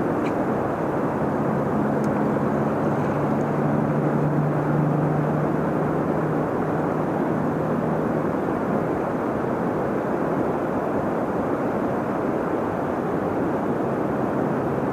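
Steady rush of river water, with a distant engine's low drone over it that fades out about halfway through.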